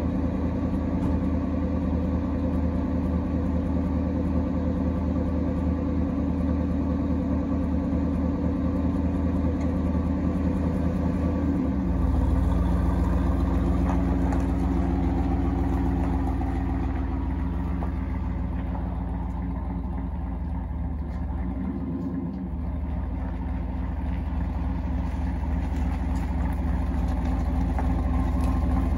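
Third-generation Chevrolet Camaro engine running at idle, not sounding healthy, with no coolant in it. Its note shifts and gets louder about twelve seconds in, dips briefly a little after twenty seconds, then picks back up near the end.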